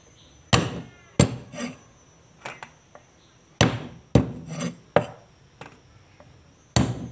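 A cleaver strikes longan seeds on a thick wooden chopping board, cracking them open: an uneven series of sharp chops, a few loud and the rest lighter. The first strike rings briefly.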